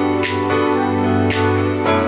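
Instrumental electronic music: sustained chords over a steady bass note, with a high hissing percussion hit about once a second and lighter ticks between.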